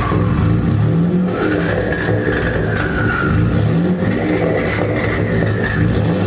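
2017 Ford F-150's 2.7L EcoBoost twin-turbo V6, with catless downpipes and an MBRP 4-inch exhaust, revving hard. The turbo whistle rises and falls twice along with the engine note.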